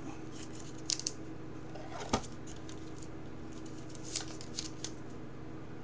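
A trading card being handled and slid into a clear rigid plastic card holder: a few light plastic clicks and rustles, with one sharper click a little after two seconds in. A steady low hum sits underneath.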